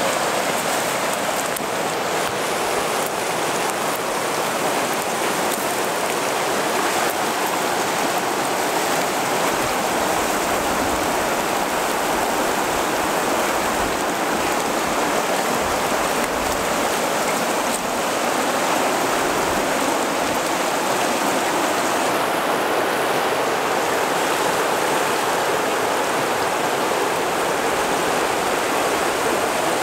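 Whitewater river rapids rushing over rocks: a steady rush of water.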